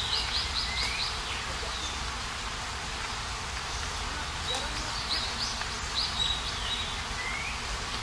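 Steady rush of a waterfall with a low rumble underneath. Over it a bird sings twice: short phrases of quick repeated high notes ending in a rising slur, one at the start and another about five seconds in.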